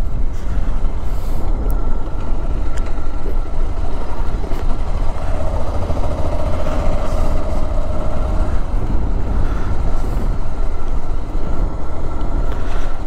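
Motorcycle riding slowly, its engine running under a heavy, steady rumble of wind buffeting the rider's microphone.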